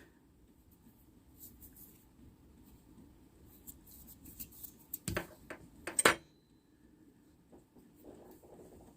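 Small metal parts being handled and searched through: faint scattered clinks and taps, with two sharper clicks about five and six seconds in.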